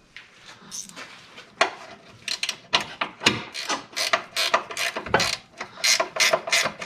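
Ratcheting gear wrench clicking as a bolt on a new front sway bar is tightened: quick clicks, about three a second, starting about one and a half seconds in.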